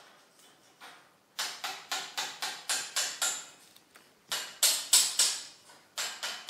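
A cat's claws scraping and gripping tree bark as it climbs the trunk: quick runs of rasping scratches, about four a second, in three bursts, the loudest about two-thirds of the way through.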